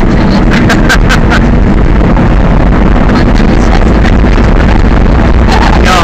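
Monster truck engine running steadily as the truck drives over a dirt track, heard loud from inside the cab with wind noise on the microphone. A few sharp rattles come between about half a second and a second and a half in.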